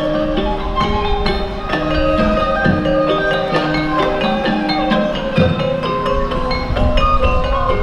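Sundanese degung gamelan ensemble playing, its struck bronze metallophones and gong-chimes sounding a melody that moves in steps from note to note.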